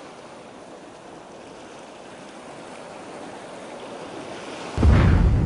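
A steady wash of water like waves in a harbour, then about five seconds in a sudden deep boom that keeps rumbling: the explosion of the battleship USS Maine.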